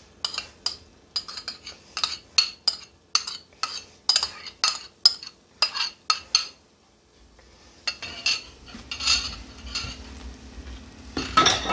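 Metal spoon knocking and scraping against a ceramic bowl, rapid clinks about three or four a second, as chopped onions are tapped out into a frying pan. The clinking stops after about six seconds and a softer rustling noise follows.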